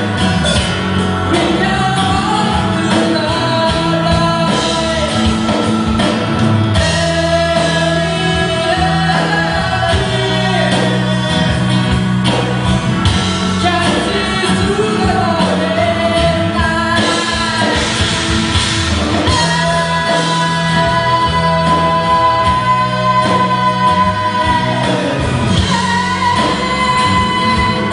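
Live rock band playing: a woman sings lead, holding long notes, over acoustic guitar, bass guitar, keyboard and drums.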